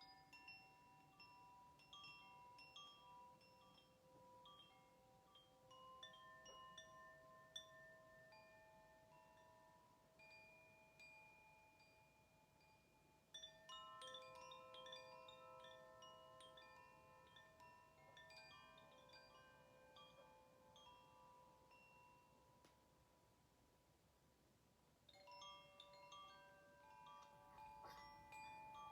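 Faint chimes ringing: clusters of bright metallic tones that ring on and slowly fade, with fresh strikes about six, thirteen and twenty-five seconds in.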